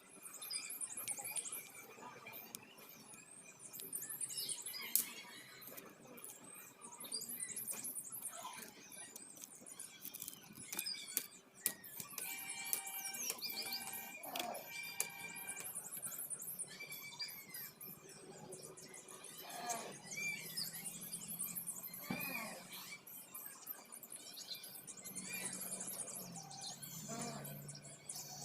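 Small birds chirping and twittering: many quick, high-pitched chirps repeating throughout.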